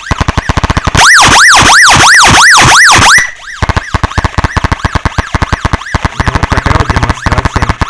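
Electronic siren played by an Arduino Nano through an amplifier, its pitch rising and falling about twice a second. It is loudest from about one to three seconds in, then drops to a quieter level and keeps going.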